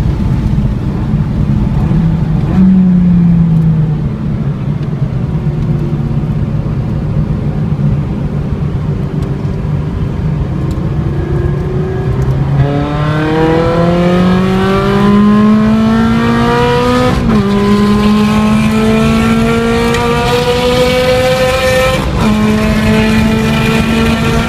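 A Ferrari's engine heard from inside the car on a race track. It runs at a fairly steady pitch at first, then accelerates hard from about halfway, its pitch climbing, with two sharp drops at upshifts about five seconds apart. Road and wind noise run underneath.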